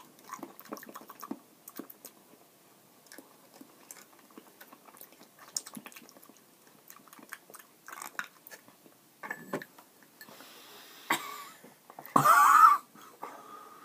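Close mouth sounds of people chewing jelly beans: soft, scattered wet clicks and smacks. Near the end comes one short, loud vocal cry.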